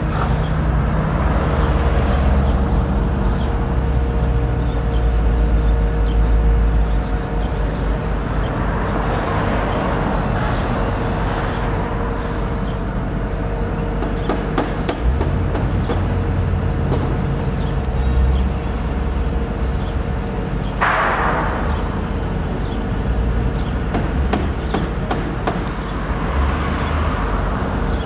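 Outdoor construction-site and street noise: a steady low rumble and hum of engines, with scattered sharp knocks and clicks like hammering. About two-thirds of the way through, a sudden rushing sound comes in and fades away.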